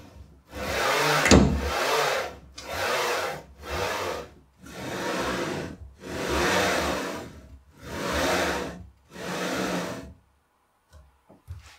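Linear-rail carriages of a RatRig KillerBee CNC frame rolling along their rails as the gantry is pushed back and forth by hand: about seven strokes of a rolling hiss, each around a second long, stopping near the end with a few faint ticks.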